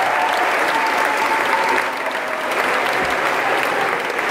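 Steady applause from a large group of girls clapping their hands.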